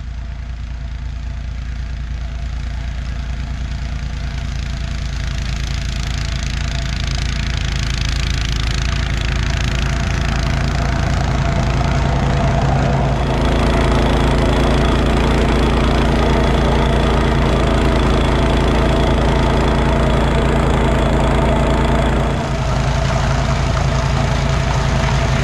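Honda HS828 tracked snowblower's single-cylinder engine running under load as the auger and impeller chew through deep snow and throw it out the chute. It gets louder about halfway through as the machine comes closer, and dips briefly near the end. This is its test run on freshly replaced belts.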